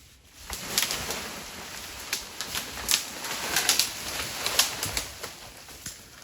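Leafy brush and branches rustling, with many sharp cracks of snapping twigs, for about five seconds before it dies down.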